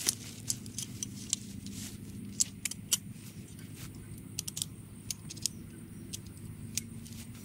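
About a dozen light, irregular metallic clicks and clinks as a tent's center pole is handled and fitted into place, over a steady low hum.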